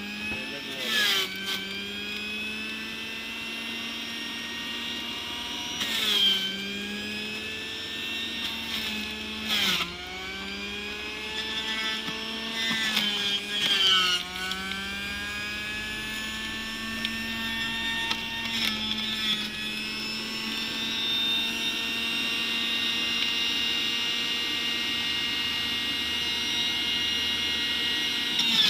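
Sujata electric juicer running with a steady high whine as bottle gourd pieces are pushed down its feed tube. Several times the motor is briefly dragged down in pitch with a knock as a piece hits the cutter, then climbs back to speed.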